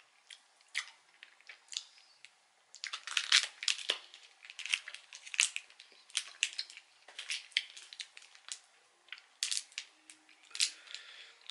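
Crinkling of a twist-wrapped sweet's wrapper being twisted and pulled open by hand: a few isolated crackles, then from about three seconds in a dense run of irregular sharp crackles.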